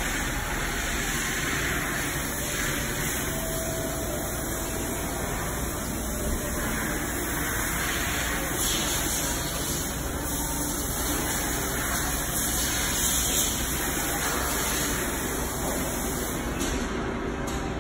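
The EJ200 evolution jack's power unit running steadily, a hiss-like mechanical noise with no clear beat.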